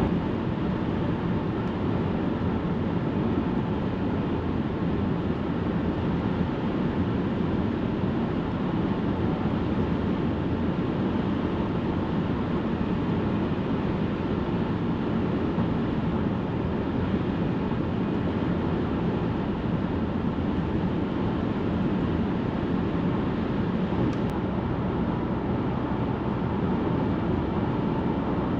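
Steady road and engine noise heard from inside a moving car's cabin, a constant low rumble while cruising at highway speed.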